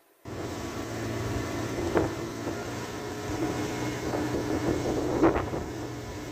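50 hp Mercury outboard motor running steadily as the boat cruises, with wind on the microphone and two brief sharp knocks, about two seconds and five seconds in. The audio cuts in after a short silent gap at the start.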